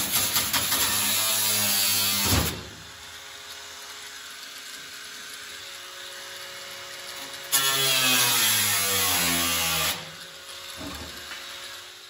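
Cordless angle grinder cutting into a rusted steel car floor pan. It grinds loudly until about two and a half seconds in and winds down, runs again for about two seconds from midway, then winds down with a falling pitch and fades out near the end.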